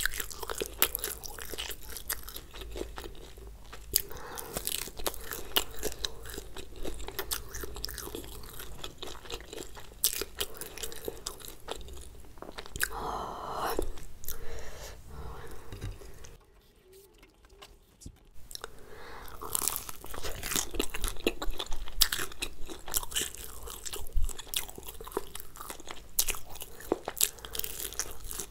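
Close-miked crunching and chewing of a crispy, crumb-coated fried soya drumstick: dense crackly bites and chews, broken by a near-silent pause of about two seconds a little past the middle.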